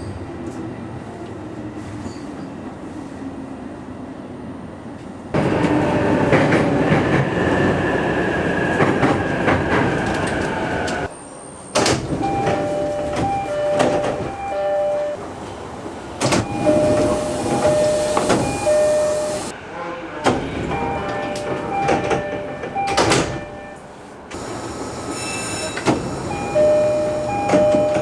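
Door chimes of JR East E233-3000 series trains: a two-note chime played three times over. It is heard four times, at the doors opening and at the doors closing on each of two trainsets, and the two trainsets' chimes differ slightly. Before and between the chimes, train and platform noise runs on, with the thumps of sliding doors.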